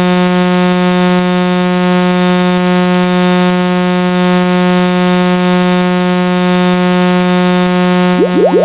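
Synthesized buzzer sound effect: one steady, low, harsh tone held unchanged, with a faint short high beep about every two and a half seconds. Near the end, quick rising boing-like sweeps start up over it.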